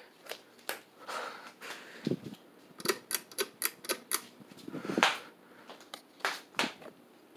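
Ceiling fan on a makeshift test rig running on high speed, with irregular sharp clicks and a few duller knocks. There is a quick run of about six clicks in the middle. The fan is known to wobble at speed.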